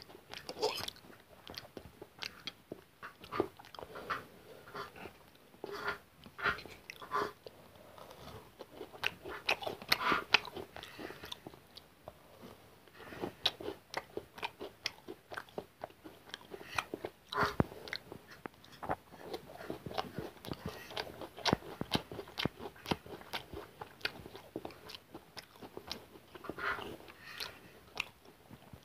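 Close-miked eating: a man chewing and slurping stir-fried hakka noodles, with irregular sharp clicks of a metal fork against the plate.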